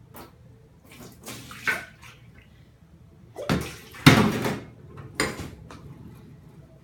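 Water splashing and pouring in a few short bursts, the loudest about four seconds in.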